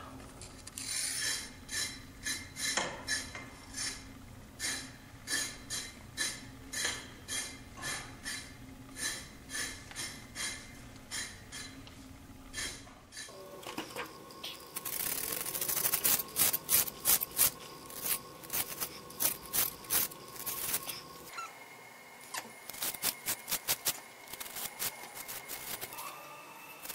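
A pointed hand tool scraping across brownstone reproduction mortar in repeated rasping strokes, scoring chisel-cut texture and lines into the surface. The strokes come about one or two a second, then faster and louder after about half way.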